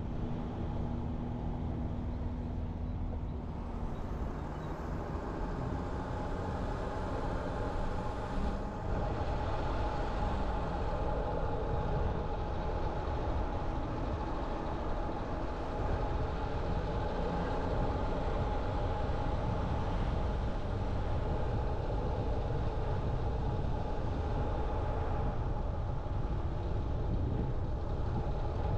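A car driving through city streets: steady road and engine noise with a faint hum, getting a little louder about nine seconds in.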